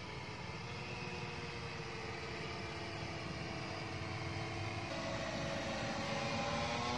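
Heavy-lift multirotor drone's propellers humming in flight, growing louder as it approaches, with the pitch shifting about five seconds in and again near the end.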